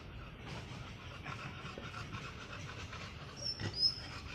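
Chongqing dog panting softly with its mouth open. Near the end come a couple of short, high chirps.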